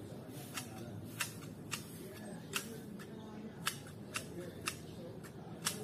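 A hand tool snipping or cutting at yard plants: sharp clicks at uneven intervals, roughly every half second to a second, over a low steady background.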